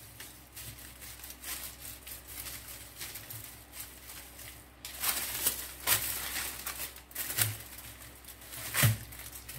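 A hand rubbing dry seasoning into a raw turkey leg, with rustling and crinkling of the parchment paper and foil lining the pan, louder from about five seconds in. A thump near the end as the leg is flipped over onto the paper.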